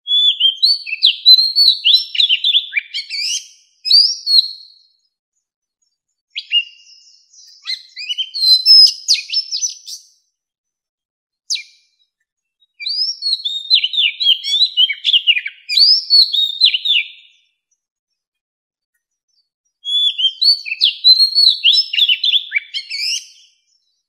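Oriental magpie-robin singing: several phrases of rapid, varied whistled notes, each lasting a few seconds, with silent pauses between them.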